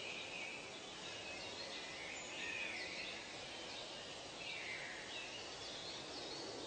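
Birds calling, short falling notes repeated every couple of seconds, over a steady background hiss.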